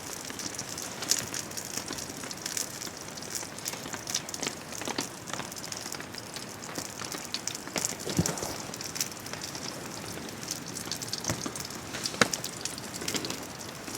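Wood campfire crackling and popping, with sharp pops about eight and twelve seconds in, over the steady patter of rain.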